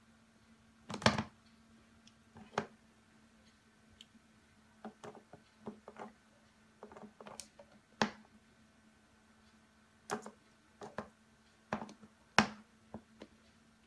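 Cat pawing at a plastic humidifier's mist nozzle: sharp, irregular taps and knocks, about a dozen, loudest about a second in and again near the end, over a faint steady low hum.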